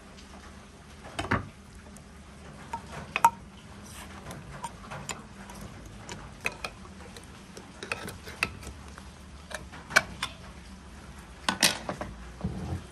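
Irregular clicks and knocks of kitchen utensils and dishes being handled, about a dozen of them spread unevenly, with a short cluster near the end.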